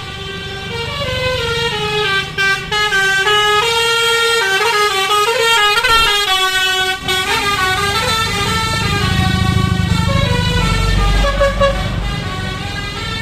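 Bus telolet horn of the basuri type, playing a melody of held multi-tone notes that step up and down in pitch, over the low rumble of the bus engine, which grows louder in the second half.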